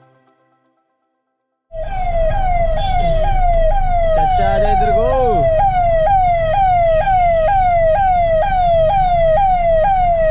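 Ambulance siren sounding in rapid, repeated falling sweeps, just under two a second. It starts suddenly about two seconds in, over a steady low rumble of road noise.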